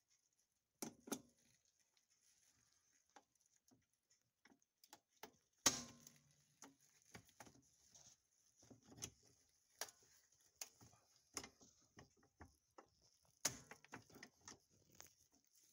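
Irregular plastic clicks and knocks from a two-pole 30 amp circuit breaker being handled and pushed onto the bus of a breaker panel, with light handling rustle between them. Two knocks stand out, about six seconds in and again near the end.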